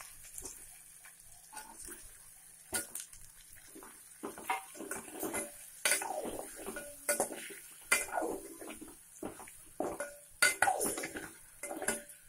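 Steel spoon knocking and scraping against a metal cooking pot as peeled boiled eggs are put in and stirred in the oil. Irregular clatters, some with a brief metallic ring.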